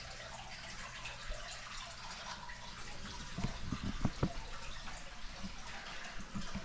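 Faint steady hiss and dripping of rain heard from inside a garage, over a low steady hum. A few soft knocks come about halfway through.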